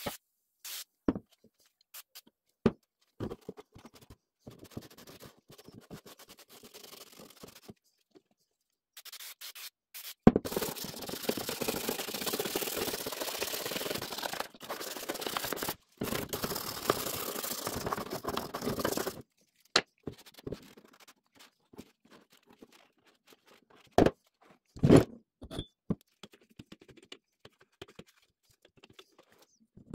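Hand scrubbing foam cleaner around the inside of a drill press's metal belt cover: a steady, rough scrubbing for about nine seconds in the middle. Before and after it come scattered light clicks and a few sharper knocks of handling on the bench.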